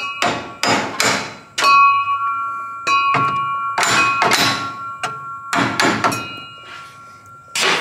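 About ten hammer blows on a metal bracket, each strike leaving a short metallic ring, as the bracket is beaten over to gain a little more clearance.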